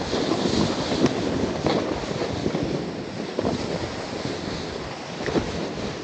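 Snowboard sliding through snow, a steady rushing hiss, with a few sharp knocks along the way.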